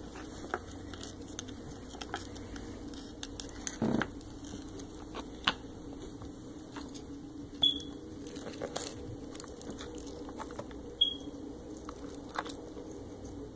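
Light scattered clicks, taps and rustles of a hamster scrabbling over cardboard boxes and plastic toy furniture, with a heavier knock about four seconds in. Two short high chirps stand out, one near the middle and one about three seconds later.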